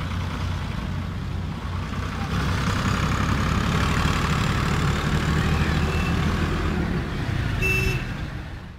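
Steady low diesel engine rumble and road noise in traffic, passing close to a Ford tractor hauling a loaded sugarcane trolley; the noise grows louder after about two seconds. A short beep near the end, then the sound fades out.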